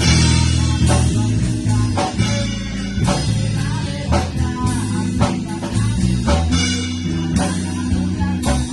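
A band playing: guitar over a heavy bass line, with a drum kit keeping time with cymbal and drum hits.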